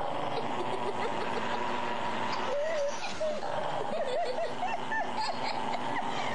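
Dog growling and snarling as it gnaws at something held in its front paws, with short bursts of stifled laughter mixed in.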